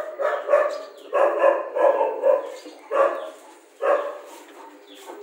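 Rajapalayam puppies barking and yelping in a quick run of short, high barks, about two a second, that thin out near the end.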